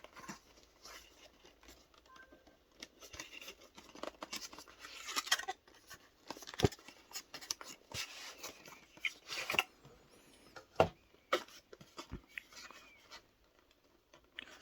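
Packaging being handled and opened: irregular rustling, scraping and sharp clicks of cardboard and plastic, with louder rustling stretches about four and eight seconds in.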